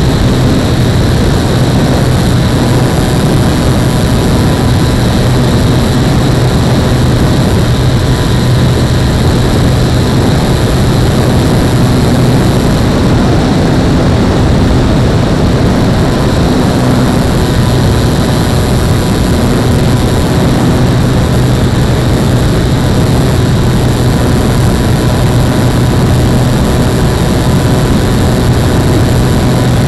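RC SR22 trainer model plane in flight, its motor and propeller running loud and steady with a continuous drone and high whine, heard close up from a camera mounted on the airframe over a rush of air noise.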